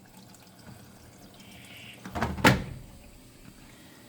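Water trickling into an LG front-loading washer as its inlet valve is cycled in the factory test mode, with one sharp knock about two and a half seconds in.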